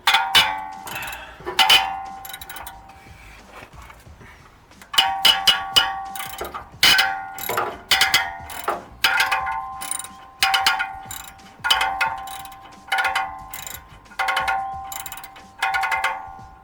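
Socket ratchet working a bolt on the car's exhaust: quick runs of ratchet clicks in strokes a little over a second apart, each with a short metallic ring from the exhaust.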